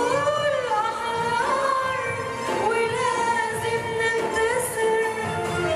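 A woman singing a solo melody, holding notes and sliding between them, accompanied by an Arabic music ensemble.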